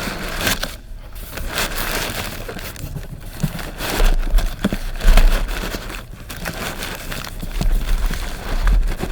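Packaging rustling and crinkling, with irregular knocks against a cardboard shipping box as a wrapped part is pushed into place.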